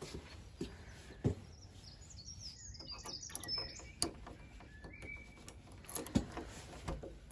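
Birds chirping briefly in the middle, over a few footsteps and then the metallic clicks of a key going into a door lock.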